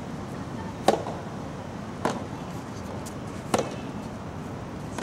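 Soft tennis rackets striking the rubber ball three times in a rally: the serve about a second in, the loudest crack, then the return a second later and a third shot a second and a half after that.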